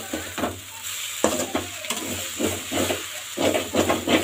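Metal ladle stirring and scraping vermicelli and scrambled egg around a metal kadai, repeated scrapes over a steady frying sizzle.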